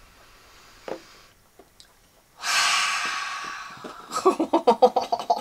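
A woman breathing in the smell of a ripe jackfruit held to her nose: a faint sniff, then about two and a half seconds in a long, loud breath that fades over a second and a half.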